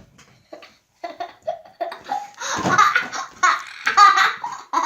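Children laughing: short bursts about a second in that build into loud, continuous laughter.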